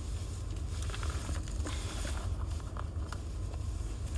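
Trading cards and foil pack wrapping being handled: light rustling and scattered small clicks over a steady low hum.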